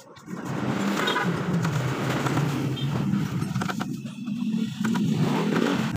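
An engine running nearby, a steady low rumble whose pitch wavers slightly, loudest from just after the start to near the end. Under it are faint scrapes and ticks of steel rods being pushed through the tubes of a radiator core.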